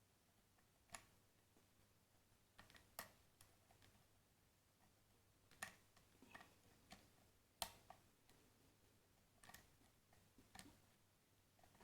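Faint, irregular metallic clicks of a lock pick and tension wrench working the spool pins of a Vita cylinder lock, roughly one click a second with no steady rhythm.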